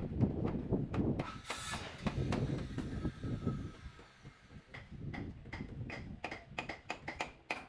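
Sharp knocks in quick succession, several a second, in the second half, after low rumbling and clatter in the first half.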